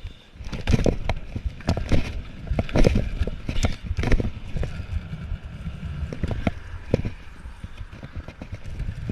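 Stunt scooter riding on skatepark concrete: a low rolling rumble from the wheels, broken by sharp clacks and knocks as the wheels cross seams and the deck lands. The knocks come thick and fast over the first few seconds, then only now and then.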